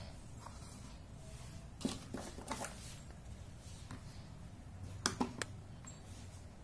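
Small plastic toy pieces clicking and tapping as they are handled and fitted onto a miniature plastic ice cream cart: a few light clicks about two seconds in and a quick run of three clicks about five seconds in, over a faint steady hum.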